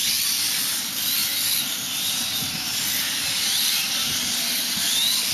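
Several 1/8-scale electric RC racing motorcycles running around the track, a high-pitched motor whine whose pitch rises and falls as they speed up and slow for the corners.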